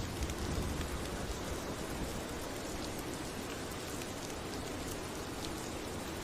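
Steady rain falling, a continuous hiss with individual drops ticking through it.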